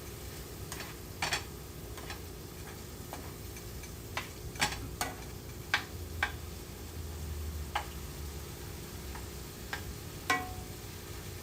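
A utensil clinking and tapping irregularly against a pan while food is stirred, about a dozen sharp clicks, one near the end ringing briefly like metal. A steady low hum runs underneath.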